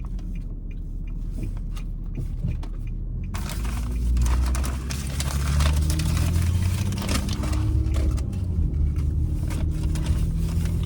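Car engine and road rumble heard from inside the cabin, a steady low drone that grows louder and fuller about three to four seconds in.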